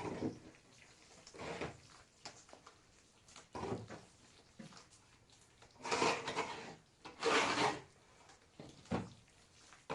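A series of short scraping, rubbing noises, the two longest and loudest about six and seven seconds in.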